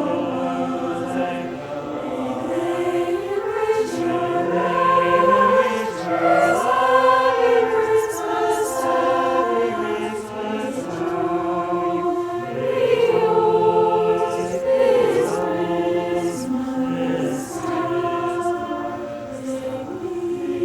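High school choir singing in sustained, multi-part chords.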